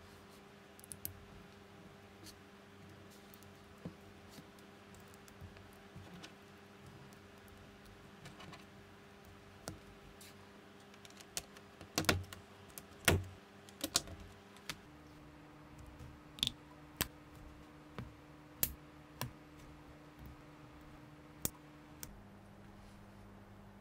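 Plastic LEGO bricks being clicked and pressed together by hand: a scattering of small sharp clicks and snaps, with a cluster of louder snaps about halfway through.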